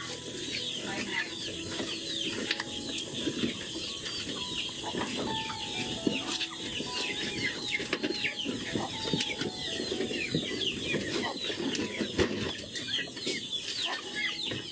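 Chickens clucking and chirping in a quick, continual string of short falling calls, over close rustling and crunching.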